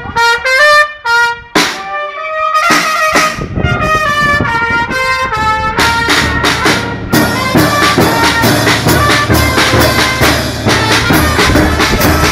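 Charanga street band playing a pasacalles: trumpets play a melody over sparse drum strokes, then about six seconds in the bass drum, snare drum and hand cymbals settle into a steady, dense beat under the brass.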